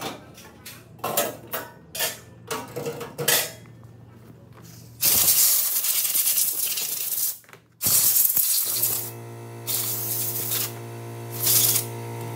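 Small metal Glock pistol parts clinking and knocking as they are handled and set down on cardboard. Then a compressed-air blow gun blasts the wet parts dry in bursts, one long blast about five seconds in and then shorter ones, clearing the ultrasonic cleaning solution off them. A steady low hum starts under the last blasts.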